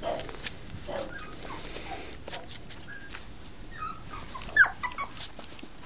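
Norfolk terrier puppy whining in short, high-pitched squeaks, loudest in a quick run of them about four and a half seconds in.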